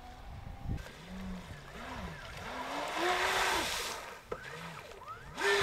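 Streamline RC Thrasher jet boat running on the water, its 6S LiPo electric motor whine rising and falling as the throttle is blipped. A hiss of water spray swells around the middle as the boat sweeps past, and there is a sudden louder burst near the end.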